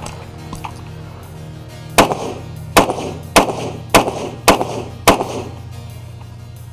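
Six gunshots from a long gun fired in quick succession, a little over half a second apart, each with a ringing echo, over steady background music.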